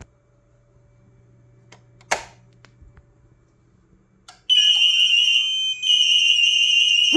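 A sharp click about two seconds in as the manual fire alarm call point is triggered. About four and a half seconds in, the Rokot-5 warning system starts a loud, high-pitched, steady fire alarm tone that breaks off briefly once and comes back.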